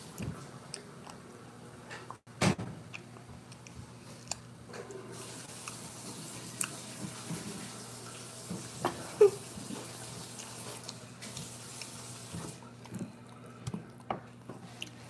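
Mealtime table noise: scattered clicks and knocks of cutlery and plates, the sharpest about two and a half seconds in, over a steady low hum and a faint hiss that stops about twelve seconds in.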